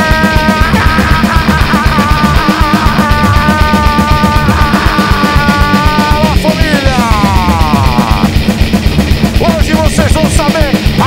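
Loud rock music with electric guitar over a fast, pounding drum beat, with a run of falling guitar slides about halfway through and wavering bent notes near the end.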